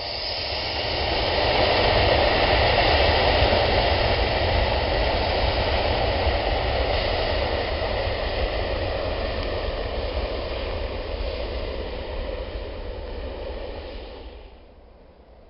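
Jet airliner's engines, a loud rushing noise with a high whine over it. It builds over the first two seconds, fades slowly, and falls off sharply near the end.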